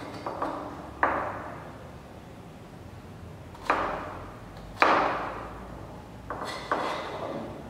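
Kitchen knife chopping down onto a plastic cutting board: about seven separate, irregularly spaced strikes, each a sharp knock with a short ringing tail.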